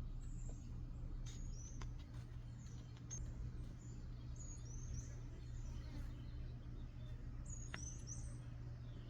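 Birds chirping faintly: short, high chirps that drop in pitch, coming in small clusters, over a steady low hum.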